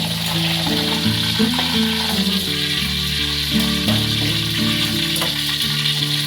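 Food frying in hot oil in a pan, a steady sizzle, under background music with a plodding bass line and changing low notes.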